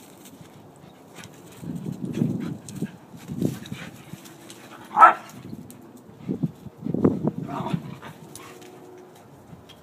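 Several dogs at rough play: repeated low growls and barks from about two seconds in, one loud sharp yelp about halfway through, then more growling and a short whine.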